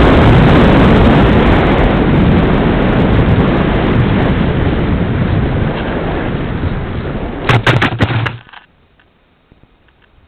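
Loud air rush and motor noise on a Beta 1400 RC plane's onboard camera as it glides down, slowly fading. About 7.5 seconds in, a quick cluster of knocks as the plane hits the ground on landing, then the rushing noise cuts off suddenly.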